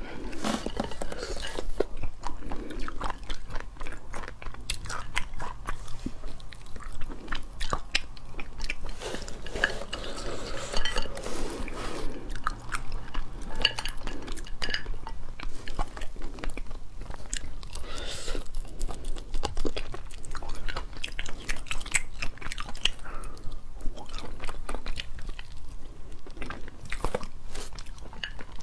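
Chewing and biting with crunches, and the cracking of a cooked crustacean's shell as it is pulled apart by hand, in many short crackles and clicks.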